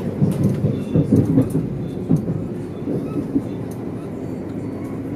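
Stadler FLIRT passenger train running, heard from inside the carriage: a steady low rumble and hum. Indistinct voices sound over it in the first few seconds.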